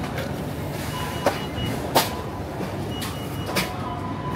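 Food court background noise: a steady din with a few sharp clinks or knocks, and runs of short, high-pitched beeps sounding twice.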